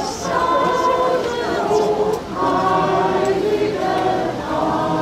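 A group of voices singing a Christmas carol together, the phrases broken by short pauses about two seconds apart.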